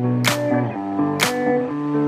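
Background music: guitar with changing chords and a sharp drum hit about once a second.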